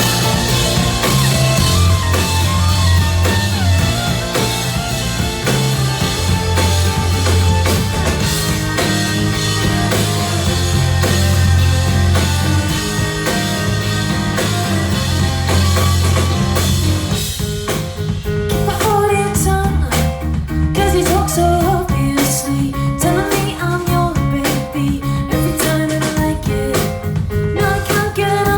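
Punk/noise-pop band playing live and loud, with drums, heavy sustained bass and guitars in a dense wall of sound. About two-thirds of the way in, the wash thins to a sparser section where a melodic line moves over the bass.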